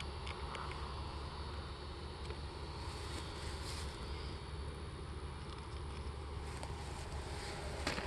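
Steady low outdoor rumble with a few faint clicks, and no distinct event standing out.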